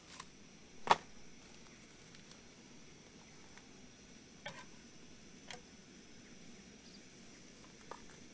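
Small clicks and taps of cooking things being handled at a camping stove and frying pan: one sharp click about a second in, then a few lighter ticks over a faint steady background.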